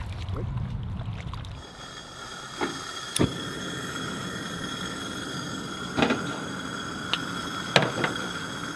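Water sloshing in the shallows for about a second and a half. Then a propane camp stove burner runs with a steady hiss and whine, and there are a few short sharp clicks.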